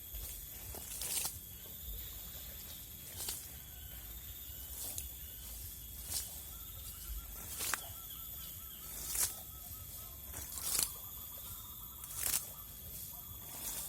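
Forest ambience: insects droning steadily at a high pitch, with sharp short crackles or clicks about every second and a half and a faint pulsed chirping call in the second half.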